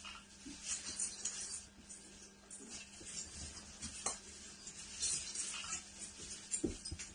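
Christmas tree branches rustling and crackling unevenly as cats climb through them, with a couple of light knocks about four seconds in and near the end.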